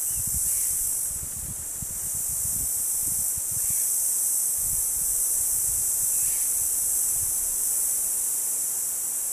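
Steady high-pitched buzz of an insect chorus, with wind rumbling on the microphone. No howler monkey howls are heard.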